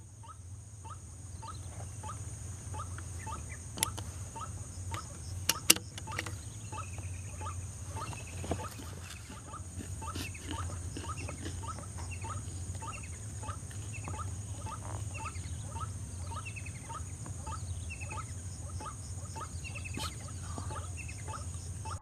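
White-breasted waterhen calling: a short croaking note repeated steadily about two to three times a second, over a steady high hiss. A few sharp clicks sound around four and six seconds in.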